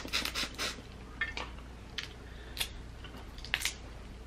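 Boiled crawfish being peeled and eaten by hand close to the microphone: crisp cracks and clicks of the shells in a few short clusters.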